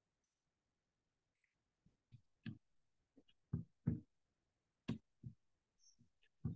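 Irregular clicks and soft taps picked up by a video-call microphone, about a dozen of them. They start about two seconds in after near silence, and the loudest come in the middle.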